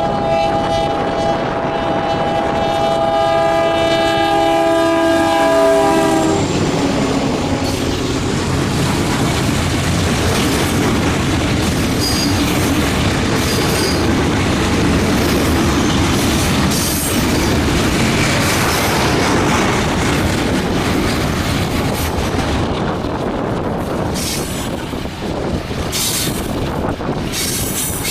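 Freight diesel locomotive's air horn sounding a held chord of several notes for about six seconds, then cutting off. Afterwards the locomotive and freight cars roll past, with wheels clicking over rail joints and some wheel squeal.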